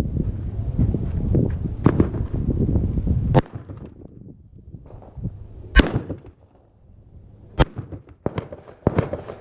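About six rifle shots fired at an uneven pace, the loudest a little past the middle. A rushing noise on the microphone cuts off abruptly about a third of the way in.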